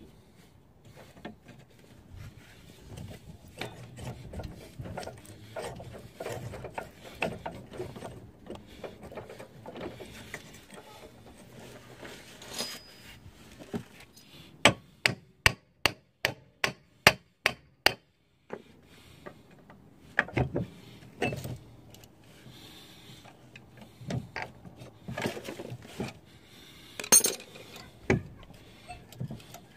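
Hands and hand tools working on a car's front driveshaft and CV joint: scraping and light clanks of metal parts, with a run of about nine sharp, evenly spaced knocks halfway through and a few more single knocks near the end.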